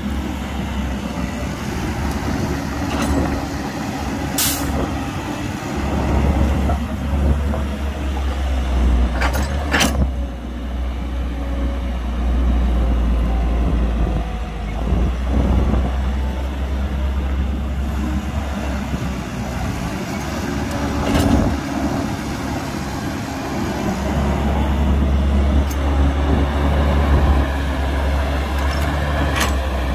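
Heavy diesel engines of an excavator and a dump truck running under load, a steady low rumble that swells and eases. Several brief sharp sounds cut through it: the loudest about four seconds in, and two close together near ten seconds.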